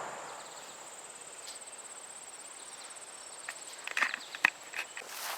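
An insect's steady high-pitched trill that stops shortly before the end, with a few footsteps and short clicks about four seconds in.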